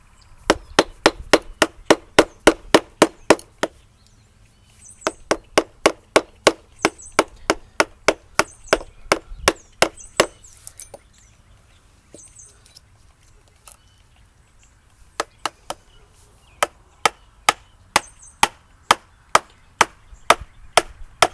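A mallet rapidly tapping a chisel into a wooden log, about four or five strikes a second. It comes in three runs with short pauses between them.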